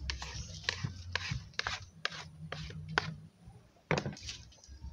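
Wooden stick and plastic scoop turning and pressing soft eba (garri dough) in a plastic bowl: short scrapes and knocks about twice a second, then a pause and one sharper knock about four seconds in.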